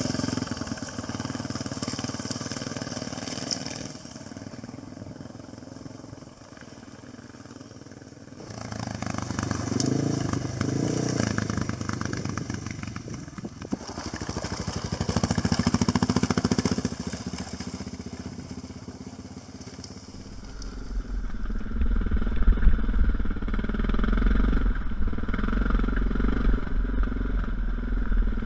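Honda XR650 dual-sport motorcycles with single-cylinder four-stroke engines ride over a rocky trail. The engine sound rises and falls, swelling twice as bikes come close. About twenty seconds in it becomes a close, steady engine with a deep rumble, as heard from on the bike.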